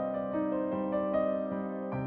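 Background piano music, each note held, with the notes changing about twice a second.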